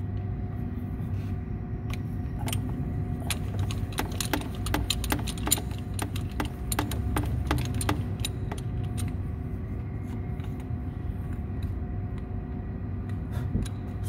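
Irregular sharp metallic clicks and clinks of tools and a spark plug being handled, most of them in the first half, over a steady low rumble.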